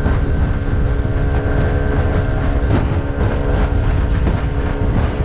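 Boat's outboard motor running steadily under way, a constant engine drone over a low rumble.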